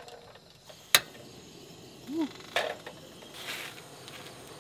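Portable camping gas stove being handled while an empty gas canister is swapped for a spare: one sharp metallic click about a second in, then a short squeak and a few softer clicks and rustles.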